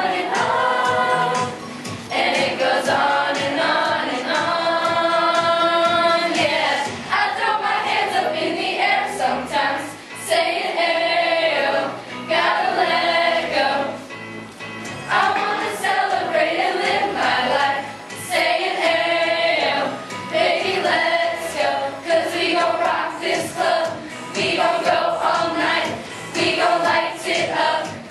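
A choir singing a pop song medley with backing music, in phrases with short breaks between them.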